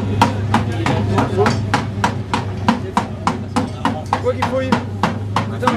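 Repeated hammer blows on a part of a 2CV cross racing car under repair, about three sharp strikes a second in a steady rhythm, over a steady low hum.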